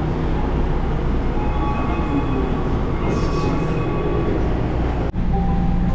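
Yui Rail monorail train standing at a station platform with its doors open: a steady rumble of train and station noise as passengers board, with a few faint steady tones in the middle. The sound cuts off abruptly about five seconds in and gives way to a steadier sound with a low hum.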